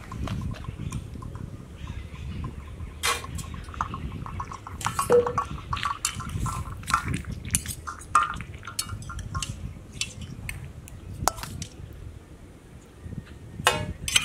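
Utensils clinking, knocking and scraping against a metal cooking pot at irregular intervals, with a few short ringing clinks.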